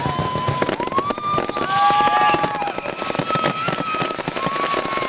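Fireworks finale barrage: aerial shells bursting in rapid succession with dense crackle, and several long, steady whistling tones sounding over it.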